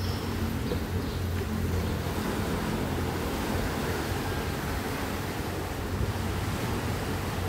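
Water churning and splashing against a concrete seawall in a steady wash, with wind on the microphone and a low steady hum underneath.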